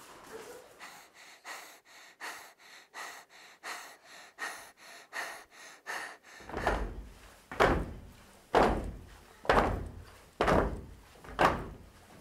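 A steady beat of deep, heavy thumps about once a second, getting louder, coming in about six seconds in after faint, quicker ticks about twice a second.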